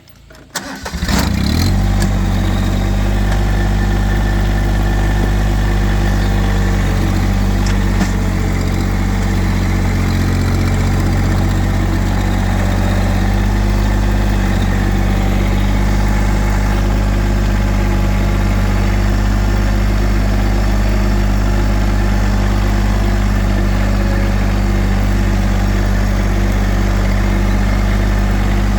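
Massey Ferguson subcompact tractor's diesel engine starting up about a second in, then running steadily.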